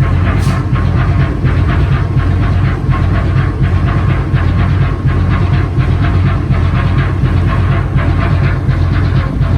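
Coastal tanker's six-cylinder marine diesel engine running steadily and loud, with a deep drone under a fast, even clatter.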